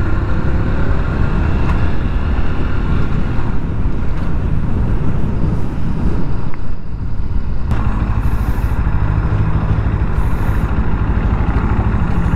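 GPX Demon GR200RR single-cylinder engine running as the motorcycle is ridden slowly, with wind and road rumble over it. About eight seconds in it settles into a steady idle as the bike pulls up.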